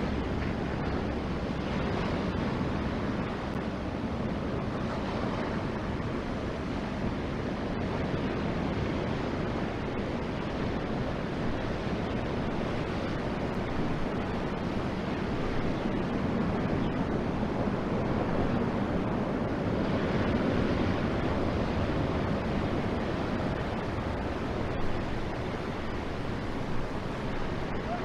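Steady rush of surf breaking on the shore, swelling a little now and then, with wind on the microphone. There is one short knock near the end.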